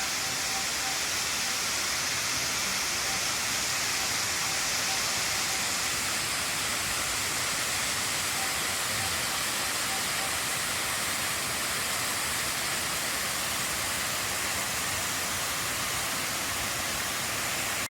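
Large waterfall pouring over a 200-foot cliff: a steady, even rush of falling water.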